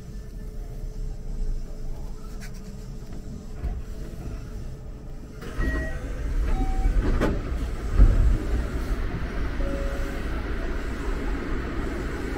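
Electric commuter train running on rails, heard from inside the front car. A low steady rumble with a faint hum suddenly grows louder about five seconds in, with a click and then a heavy thump a few seconds later.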